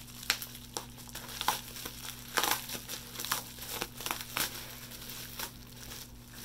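Bubble wrap being unwound and handled, crinkling and rustling with irregular crackles.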